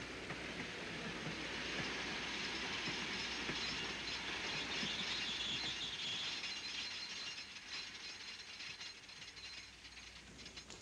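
Railway train slowing to a halt at a station: a hiss that swells and then fades, with scattered clicks and clanks of the carriage. The low running rumble stops about six seconds in as the train comes to rest.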